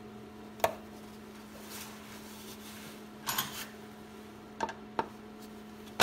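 A few light metallic clicks and a brief scrape about three seconds in, from hand work on a parking brake cable's E-clip and bracket, over a steady faint hum.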